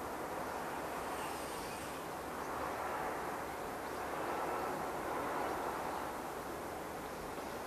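Distant, steady rumble of a long container freight train hauled by an EF210 electric locomotive, its wagons running over the rails, swelling a little midway.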